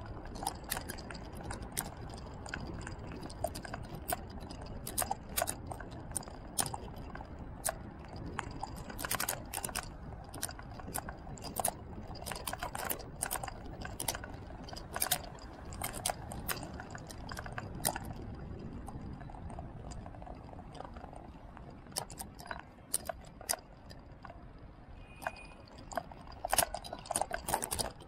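Road noise from riding along an asphalt road: a steady low rumble with many irregular small clicks and rattles, which come more thickly near the end.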